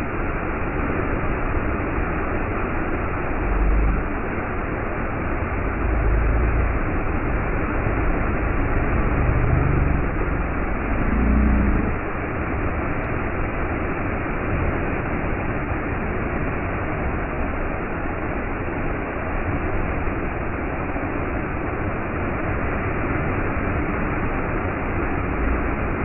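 Waterfall pouring into a plunge pool: a steady, even rush of falling and splashing water, with a few brief low rumbles.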